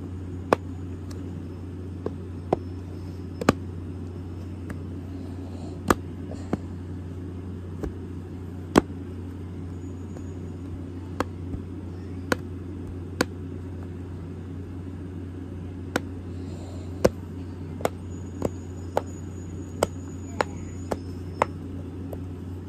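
Silicone push-bubble fidget toy (simple dimple) being pressed. Its bubbles pop through with sharp, separate clicks at an uneven pace, about one or two a second with short pauses, over a steady low hum.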